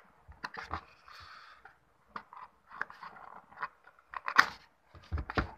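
Small cardboard phone box being opened by hand: the seal sticker torn and the paperboard flaps pulled open, giving irregular scrapes, crackles and sharp clicks, the loudest a little past four seconds in.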